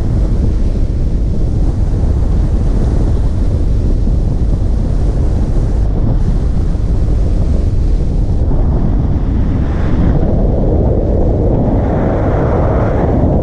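Heavy wind buffeting the microphone of a camera moving along the road: a loud, steady low rumble, getting hissier from about nine seconds in.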